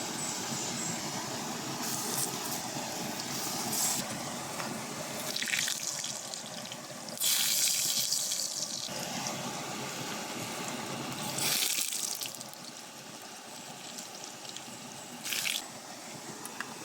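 Water splashing and pouring in several short bursts, the longest about a second and a half, over a steady rushing background.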